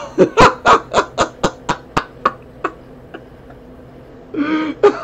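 A man laughing: a run of quick bursts, about four a second, fading out over the first three seconds, then a short pitched burst and more laughter near the end.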